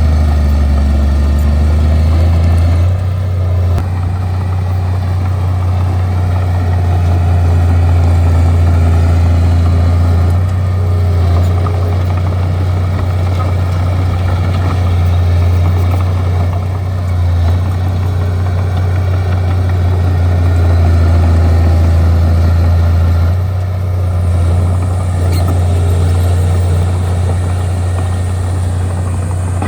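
Bulldozer's diesel engine running continuously under load, its loudness swelling and easing gently a few times as the machine works.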